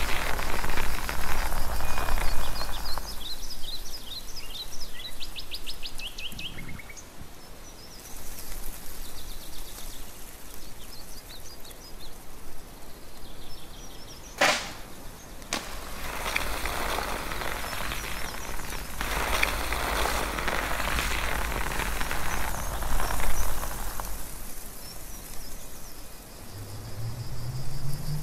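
Outdoor ambience with birds chirping, then a single sharp crack about halfway through with a softer click just after, followed by several seconds of steady rushing noise.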